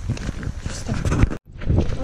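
Footsteps of several people walking on a gravel path, a dense run of irregular knocks, broken by a split-second dropout of all sound partway through.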